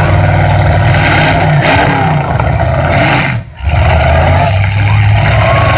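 Full-size demolition derby cars' engines revving hard and steady while the cars shove against each other. The engine noise drops out briefly about three and a half seconds in, then comes back.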